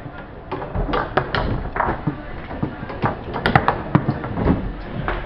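Tornado foosball table in play: an irregular run of sharp knocks and clacks, beginning about half a second in, as the ball is struck by the rod figures and hits the table.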